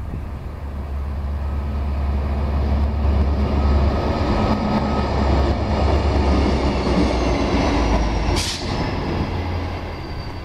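A locomotive-hauled train passing close by: a heavy rumble that builds over the first few seconds, holds, then eases as the train goes past. A high whine falls slowly in pitch in the second half, and a brief sharp high hiss comes about eight seconds in.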